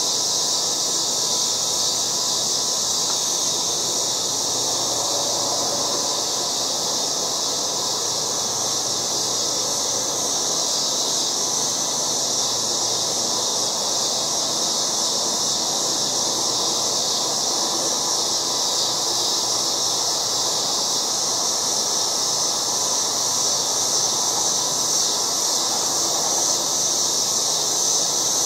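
Loud chorus of cicadas buzzing in one unbroken, steady high-pitched drone, over a weaker low background noise.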